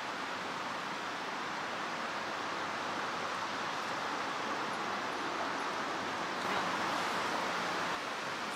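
Steady rushing outdoor noise, swelling a little about six and a half seconds in and dropping back near the end.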